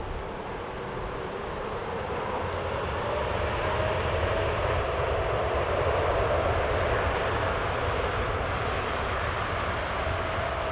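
Boeing 747-8F freighter's four GEnx turbofan engines, a loud jet roar with a steady whine, building over the first few seconds, peaking about midway and easing slightly.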